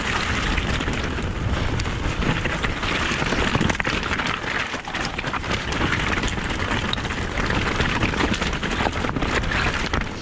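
Mountain bike tyres rolling fast over loose, wet stones on a rocky descent: a continuous crunching, crackling noise dense with small knocks and rattles from the bike over the rough ground.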